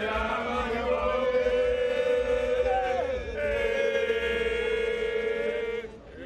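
Men's voices chanting together in long held notes, in two phrases with a short break about three seconds in.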